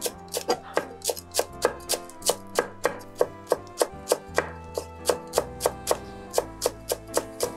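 Chef's knife chopping fresh parsley on an end-grain wooden cutting board: a quick, even run of blade knocks on the wood, about three to four chops a second, over background music.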